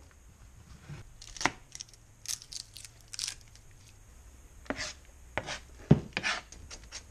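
Kitchen knife chopping and mincing garlic on a plastic cutting board: single sharp knocks of the blade on the board, some rustling, then a quicker run of small taps near the end.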